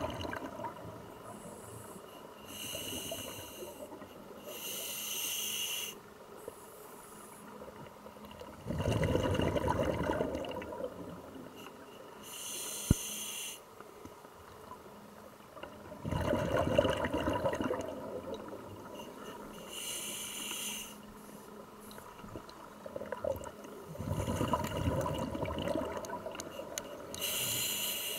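Scuba diver breathing through a regulator underwater: short hissing inhalations through the demand valve alternating with longer bubbling exhalations, a few seconds apart. A single sharp click about halfway through.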